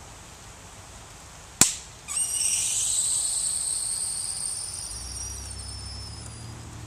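Dry ice bottle bomb: a sharp pop, then pressurised gas escaping from the plastic bottle in a high whistling hiss that slowly sinks in pitch and fades over about four seconds.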